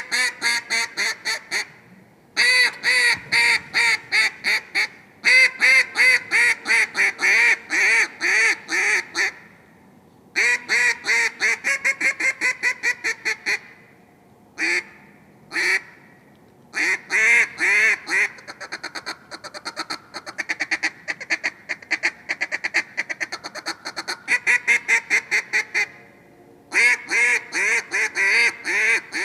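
Field Proven Shot Caller single-reed duck call blown in hen-style quacking: strings of loud, descending-cadence quacks broken by short pauses, two lone quacks near the middle, then a long run of fast, quieter chatter notes before a last quacking sequence.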